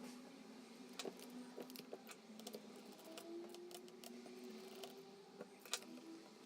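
Faint, scattered small clicks and taps from a laptop's parts being handled during disassembly, one sharper click near the end.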